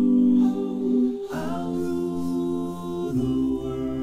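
Five-man a cappella vocal group singing held harmony chords with no instruments. The chord shifts about a second in, and near the end a deep bass voice comes in much lower beneath the harmony.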